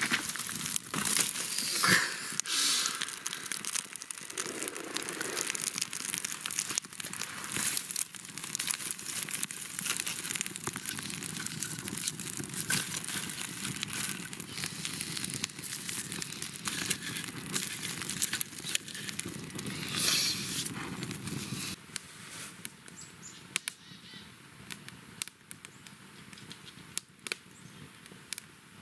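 Crinkling and rustling of packaging being handled, with scattered sharp crackles. It stops about three-quarters of the way through, leaving only faint occasional clicks.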